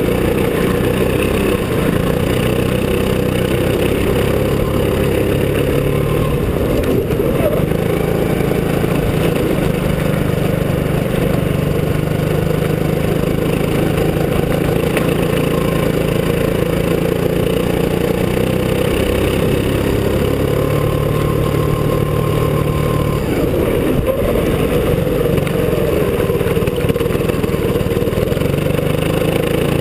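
Go-kart engine running while the kart is driven, its pitch rising and falling with the throttle.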